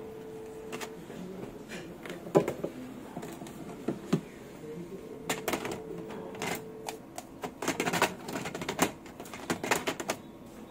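Irregular sharp plastic clicks and knocks of toner cartridges being handled and pressed into place in the pulled-out cartridge drawer of an HP Color LaserJet M452dn laser printer.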